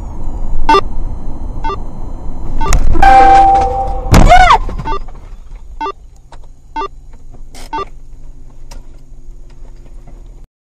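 Dash-cam audio inside a moving car: road and engine noise with a sharp click about once a second. About three seconds in, a loud blast holds one steady pitch, then a louder cry- or squeal-like sound bends down in pitch. After that the car slows to a stop and only a quiet, steady engine hum remains until the sound cuts off.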